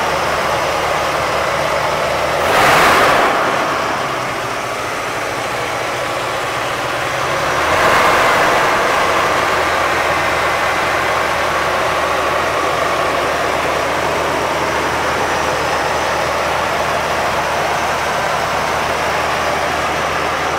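A 1979 Chevrolet C10's 350 cubic-inch V8 idling steadily under the open hood. The sound swells briefly about three seconds in and again about eight seconds in.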